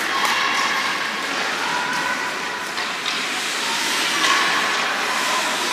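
Ice hockey game noise in an arena: a steady rushing hiss, with faint distant voices and a few light clicks.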